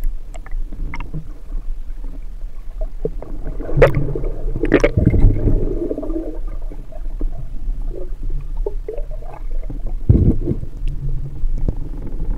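Muffled underwater gurgling and bubbling heard through a submerged camera housing, a steady low rumble with louder knocks and swishes about four, five and ten seconds in.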